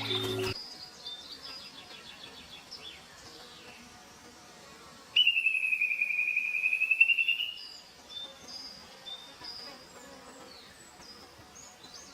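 Nature ambience of birds chirping faintly, with one loud buzzing trill that holds a high pitch for nearly three seconds about five seconds in.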